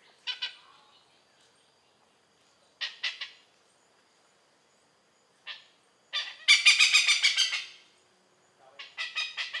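Oriental pied hornbill calling: loud, harsh cackling notes in short bursts with pauses between. A longer, fast run of notes comes about six seconds in, and another near the end.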